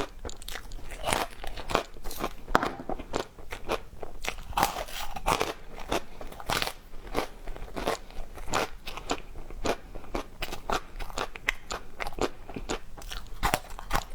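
Ice being bitten and chewed, a dense run of crisp, irregular crunches and crackles.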